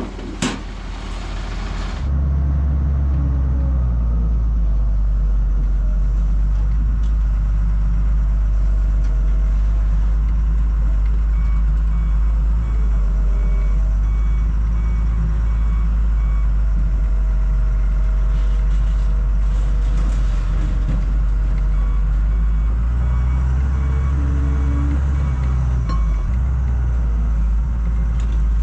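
Diesel engine of a hydraulic excavator running steadily under load, heard from its cab as the boom pushes scrap, with a reversing alarm beeping for several seconds midway. A couple of sharp metal knocks come right at the start.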